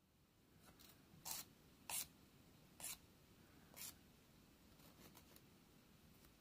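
Four short scratchy strokes of a hand nail file (100/180 grit) against the edge of a plastic press-on nail tip, with a few fainter ones between.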